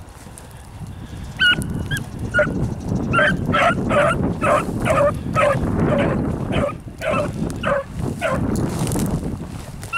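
Beagle baying: a rapid string of short, high yelps, about two a second, starting about a second and a half in and stopping near the end, the hound giving tongue on a scent trail. Wind rumbles on the microphone underneath.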